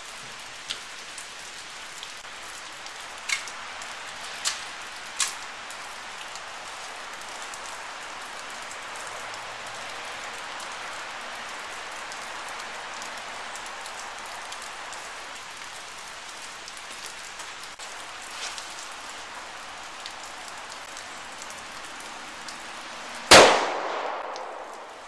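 Steady rain hiss with a few faint clicks early on, then near the end a single loud shot from a Walther P22 .22 rimfire pistol, ringing off over about a second.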